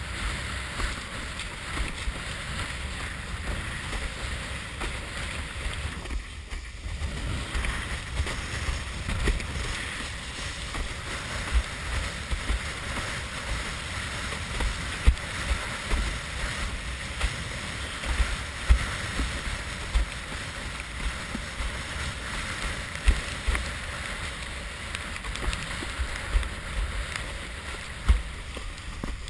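Wind buffeting a head-mounted GoPro's microphone in uneven gusts, over the rush and slap of choppy water against a windsurf board sailing along. It drops briefly about six seconds in.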